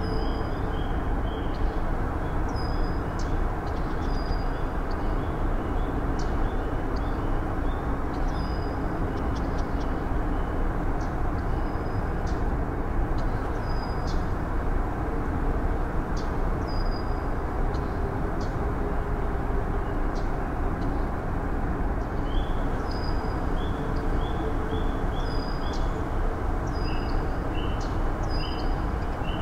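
Steady outdoor rushing noise with birds chirping over it in short runs of quick chirps, thickest at the start and in the last several seconds.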